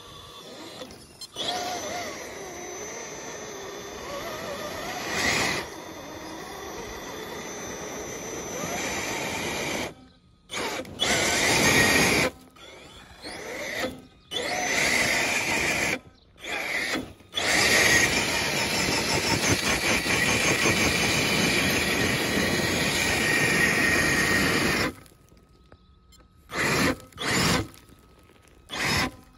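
Electric motor of an RC crawler, a Holmes Hobbies Revolver run by a Castle Sidewinder SW4 ESC, whining under throttle as the tyres churn in loose dirt and gravel. The throttle comes in bursts: one long run, several short bursts, another long run, then two short blips near the end.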